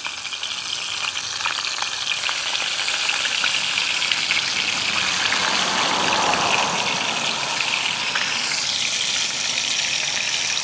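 A whole fish shallow-frying in hot oil in a metal pan: a steady sizzle with scattered small crackles and pops.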